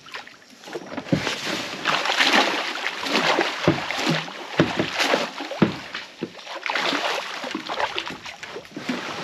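A crab pot being hauled up out of muddy creek water into a small boat: irregular splashing and sloshing as water runs off the pot, with several sharp knocks of the pot against the boat.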